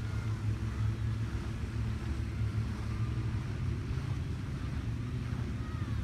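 A steady low rumble, with a few faint falling calls from the flock of gulls circling overhead near the start and again near the end.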